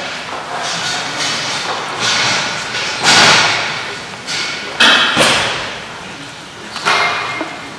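A chess clock's button pressed with one sharp click, then a few brief rustling thumps, the loudest about three and five seconds in.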